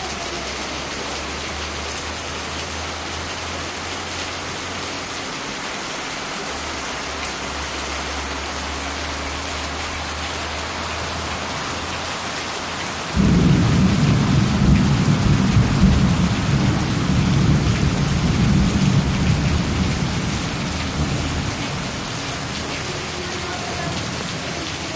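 Heavy rain pouring steadily onto the ground and floodwater. About halfway through, a sudden loud low rumble of thunder starts, runs for several seconds and slowly fades.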